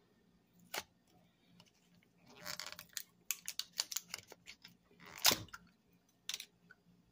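Kitchen handling sounds: scattered clicks and a rustle, with one louder knock about five seconds in.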